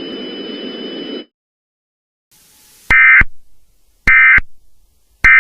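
Emergency Alert System end-of-message tones: three short, loud bursts of SAME data warble about a second apart, marking the end of the alert. Before them a hiss with a steady high whine cuts off about a second in.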